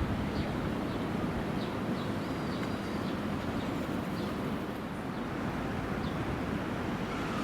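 Steady low outdoor rumble with faint, short bird chirps scattered through it.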